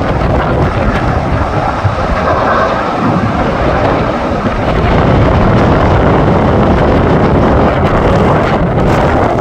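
Strong wind buffeting the microphone: a dense, loud, rumbling roar that swells a little about halfway through.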